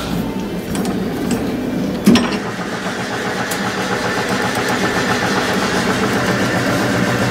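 Dynamic crankshaft balancing machine spinning a crank assembly (crankshaft, flywheel and clutch cover) up to speed, a steady mechanical hum that slowly grows louder. There is a sharp knock about two seconds in. The run is to measure how far the assembly is out of balance with the clutch cover fitted.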